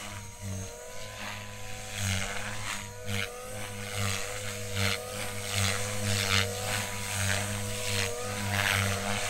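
Electric Compass Warp 360 RC helicopter with a Scorpion motor, flying: a steady motor-and-rotor whine that wavers slightly in pitch. The blade noise swells and fades repeatedly as the helicopter manoeuvres.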